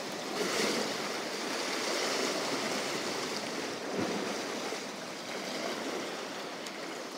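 Sea swell washing and splashing against shore rocks: a steady rush of surf, with one brief knock about four seconds in.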